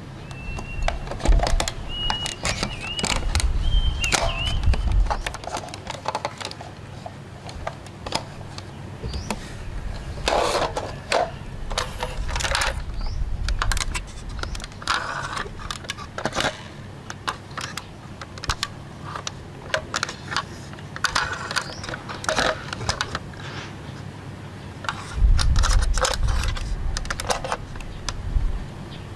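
Scattered small plastic clicks and rattles from toy vehicles being handled and turned over: a toy ambulance, then a toy tanker truck whose flip-open filler caps on top are worked. A low rumble runs under the first few seconds and again near the end.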